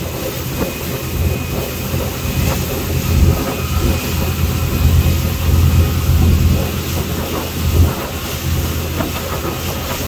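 Motorboat running underway: a steady low rumble with uneven surges and thumps, the loudest about three seconds in and again near the end.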